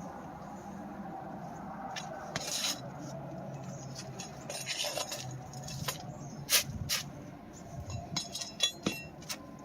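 Hand tools working on roof shingles: scattered clicks, taps and short scrapes as a shingle is worked loose, the sharpest tap about six and a half seconds in.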